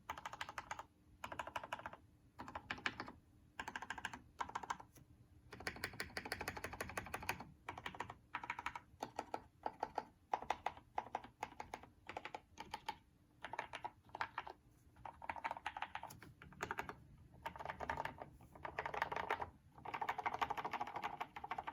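Typing on an NCR80 mechanical keyboard with lubed and filmed Cherry MX Hyperglide Black linear switches and PBT keycaps: bursts of rapid keystrokes separated by brief pauses.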